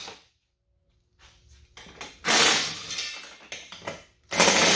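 Cordless power driver with a 15 mm socket running in two short bursts, about two seconds in and again near the end, as it backs bolts out of a plastic bumper's inner bracing. Light clicks and clatter of the tool and parts being handled come between the bursts.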